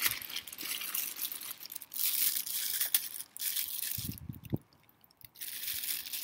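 Thin plastic bag crinkling and rustling as bell peppers are pulled out of it, breaking off for about a second a little past the middle before starting again.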